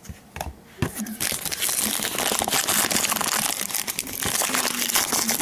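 Trading-card packaging crinkling and rustling as it is handled, starting about a second in after a few light clicks.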